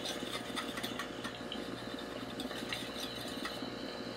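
Water bubbling in a glass dab rig as a hit is drawn through it, a steady rapid gurgle over a low hum.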